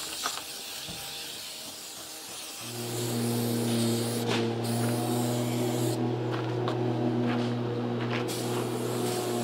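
Aerosol spray-glue can hissing as adhesive is sprayed onto a plywood board, with a few short bursts later on. About two and a half seconds in, a steady motor hum starts and carries on underneath, louder than the spray.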